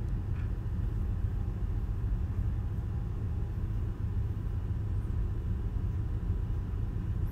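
Steady low rumble of ship's engine-room machinery, unchanging, with no distinct knocks or clicks.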